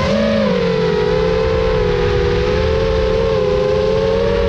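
FPV quadcopter's electric motors and propellers whining in flight, several close pitches wavering together as the throttle changes. The pitch lifts briefly right at the start, then settles.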